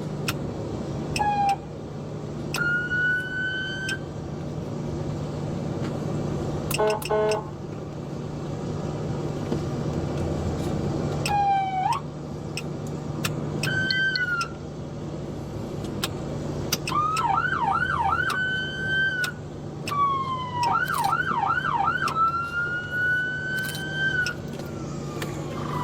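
Police car siren sounded in short whoops, then two runs of rapid yelps, then a long wail that falls away near the end, over a steady low hum.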